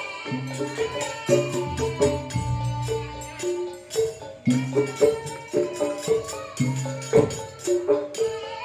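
Live traditional pencak silat accompaniment music (tabuhan): a percussion ensemble with frequent drum strokes under a melody that moves from note to note.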